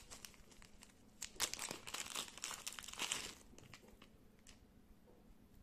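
Clear plastic zip bag crinkling and rustling as it is handled and opened by hand, in a dense run of crackles that is strongest in the first half and thins out later.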